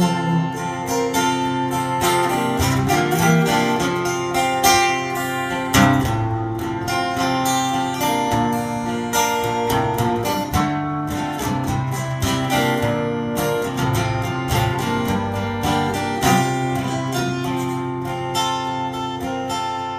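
Acoustic guitar strummed in a steady rhythm, with no singing: an instrumental break in a country-style ballad.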